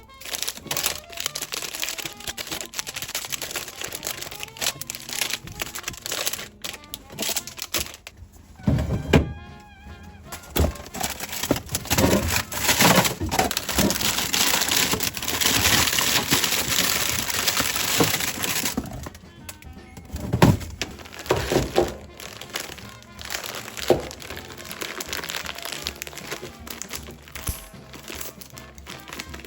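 Background music over household handling sounds: scattered knocks and clatters of items being set down, crinkling of packaging, and a steady rustling noise for several seconds in the middle.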